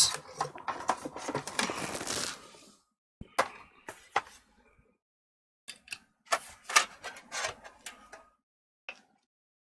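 Irregular light clicks, taps and scrapes of laptop parts being handled on a silicone bench mat, including the aluminium bottom case. The sounds come in short clusters separated by dead-silent gaps.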